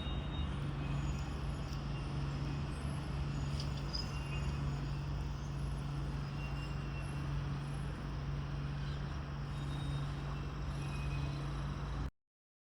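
A steady low drone with an even rushing noise, like a vehicle running. It cuts off abruptly near the end.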